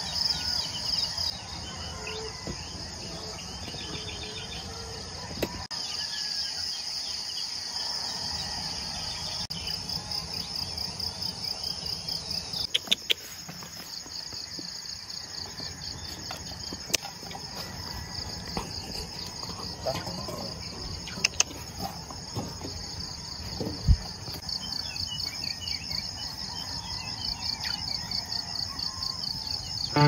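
Insects chirping in a steady, fast-pulsing chorus, with a few sharp clicks or taps scattered through the middle.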